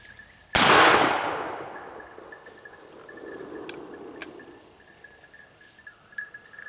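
A single shot from a black-powder muzzleloading shotgun about half a second in, followed by a long rolling echo that fades away over the next few seconds.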